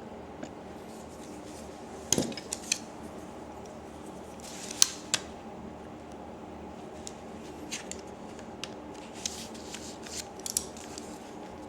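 Scattered sharp clicks and taps of small plastic and metal keyboard parts being handled and pried loose during disassembly of a synthesizer keybed, a quick cluster about two seconds in and a louder single click about five seconds in, over a steady low hum.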